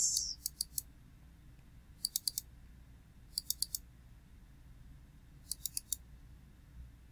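Computer mouse double-clicking four times, each a quick cluster of sharp clicks, as folders are opened one after another.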